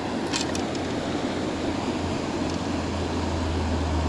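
Mountain creek water rushing over rocks in a steady rush, with a few light clicks under a second in.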